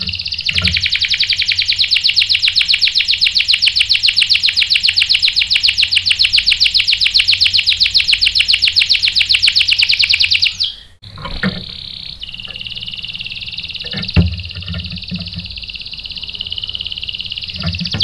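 Canary singing a long rolling song: a very fast, even trill held for about ten seconds, a brief break, then more sustained rolls on a lower, steadier pitch. A few dull knocks come through, the loudest about fourteen seconds in.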